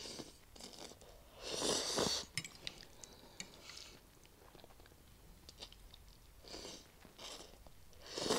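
A person slurping and chewing instant noodles. A long loud slurp comes about one and a half seconds in, then quieter chewing clicks, then several shorter slurps near the end.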